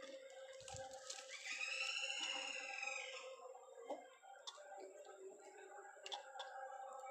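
A rooster crows once, one drawn-out call that rises and falls, starting about a second in, over a faint steady hum and a few light clicks.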